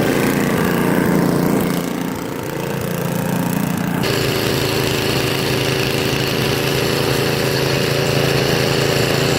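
A small motor running steadily, with an abrupt change in its sound about four seconds in.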